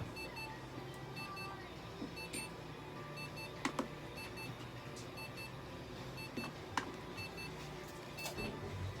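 An electronic device beeping: short double beeps repeating evenly, a little more than once a second, over a low steady hum, with a few light clicks and knocks.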